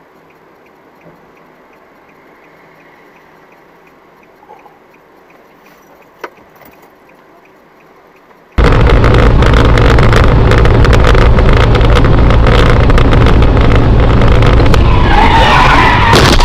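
Faint steady hum with a single click, then, about halfway in, a sudden jump to loud, distorted in-car dash-cam noise of a vehicle on the move: heavy engine and road rumble, with a wavering squeal near the end.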